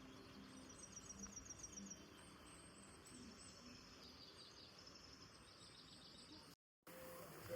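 Faint songbirds chirping and whistling in quick repeated notes over a low background hiss. The sound breaks off for a moment near the end.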